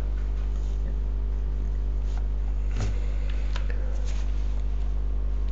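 Steady low electrical mains hum with its overtones, and a few faint clicks of a computer mouse as the slide is advanced.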